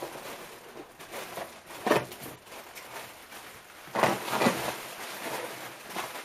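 Plastic air-cushion packing rustling and crinkling as hands dig through a cardboard shipping box and lift it out, with louder crackles about two seconds in and again around four seconds in.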